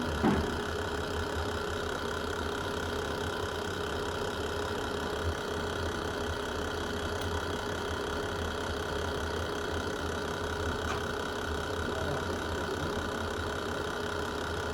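Steady low rumble of a fireplace ambience track, with a faint pop about five seconds in.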